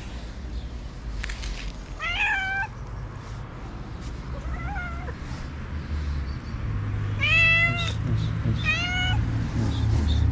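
Ginger tabby stray cat meowing four times in short calls, the third the loudest and the second faint, begging for food.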